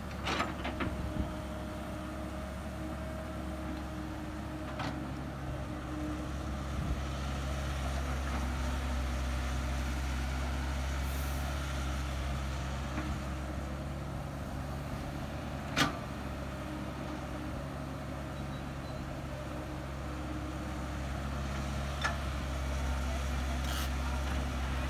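Caterpillar E110B hydraulic excavator's diesel engine running steadily, with a few sharp knocks over it. The loudest knock comes about two thirds of the way through.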